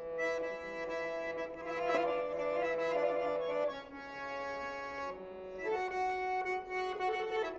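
Background instrumental music: slow, sustained chords with long held notes, shifting about every second.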